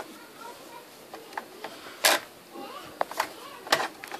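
Irregular sharp clicks and knocks of a laptop's plastic case and parts being handled while a RAM module is fitted, the loudest about two seconds in; faint voices in the background.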